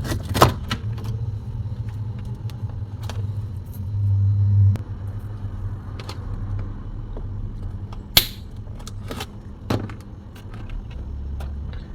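Scattered sharp clicks and knocks of plastic parts being handled while a refrigerator's DC fan is taken out, over the low steady hum of the running fridge. The loudest click comes about eight seconds in.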